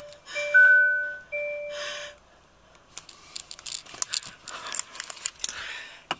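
Hyundai Ioniq Electric's electronic dashboard chimes sounding as the car powers up from the start button: a few held tones in the first two seconds, one brighter higher note among them. After a short lull, light clicking and rustling of handling.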